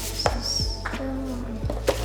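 Background music with a steady low drone, with two sharp knocks, one about a quarter second in and a louder one near the end.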